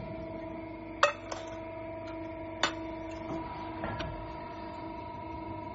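Hydraulic press brake running with a steady hum from its pump. Four sharp metallic clicks sound over it, the loudest about a second in, the others soon after and at about two and a half and four seconds.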